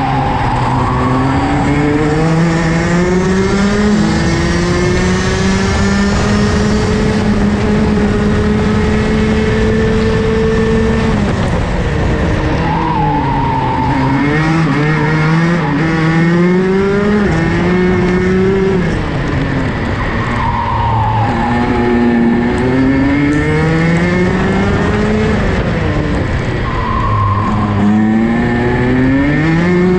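Rotax DD2 kart's 125 cc two-stroke engine at racing speed, heard onboard: revs climb in long rising pulls, dip as it shifts up a gear, and fall away sharply about three times under braking into corners before winding up again.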